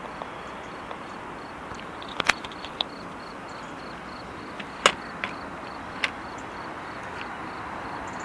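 Handling noise from a smartphone: a few sharp clicks and knocks as fingers grip and shift it, the loudest about five seconds in, over a steady outdoor hiss.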